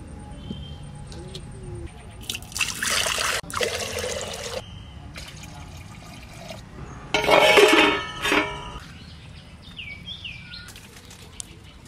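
Water poured from a steel jug into an earthenware pot, in two bursts, the louder one about seven seconds in.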